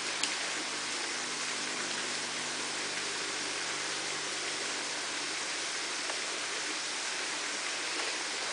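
Steady, even hissing noise, like rushing water or a camera's own hiss, with one faint click just after the start.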